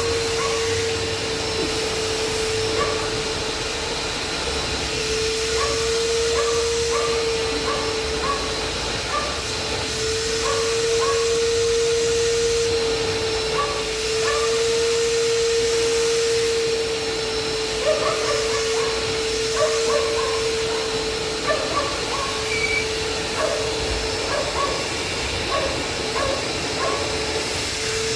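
Washing machine running: steady motor noise with a whine that drops out briefly several times, with short high chirps scattered over it.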